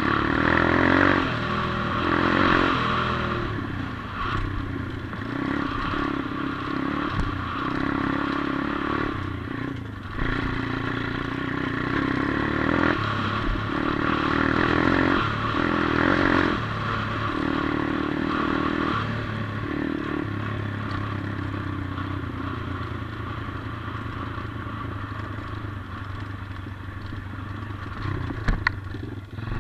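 A 140cc Atomic pit bike's single-cylinder four-stroke engine running under way, rising and falling every few seconds with the throttle. There are a couple of sharp knocks near the end.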